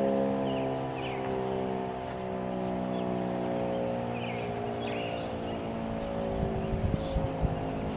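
Fedelcode Model 3 outdoor warning siren winding down, its many-toned wail slowly falling in pitch. A few low thumps come near the end.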